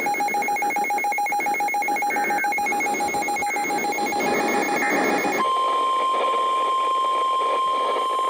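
A rapidly pulsing electronic alert beep over radio hiss for about five seconds. It gives way to a steady single-pitch NOAA Weather Radio warning alarm tone that runs to the end, marking the start of a new warning broadcast.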